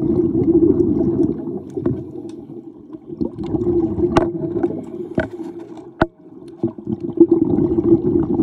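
Underwater recording of a scuba diver's exhaled regulator bubbles gurgling, heaviest at the start and again near the end, with a few sharp clicks in between.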